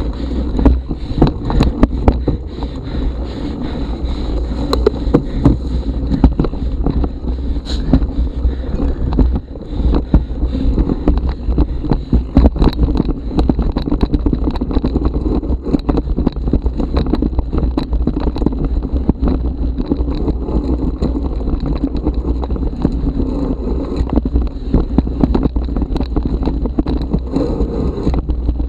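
Mountain bike riding a rough forest dirt trail, heard from a bike-mounted action camera: a deep rumble with a constant stream of rattles and knocks from the bike and tyres over roots and ground, and wind on the microphone.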